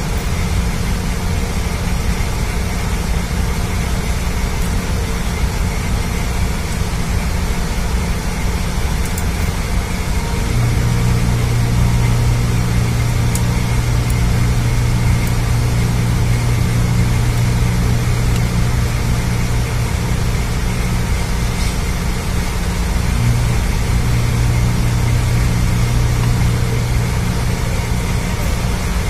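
Steady, loud machinery drone of a ship's engine room, with a strong deeper hum from another running machine that sets in about ten seconds in and holds steady.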